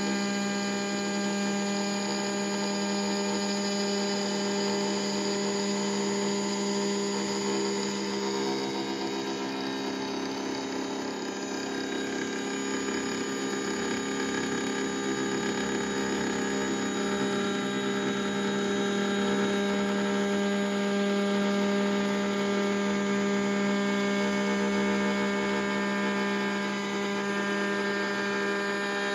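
CNC engraving machine's high-speed spindle running steadily while its engraving bit cuts into a copper block: a continuous hum with several steady higher tones layered over it.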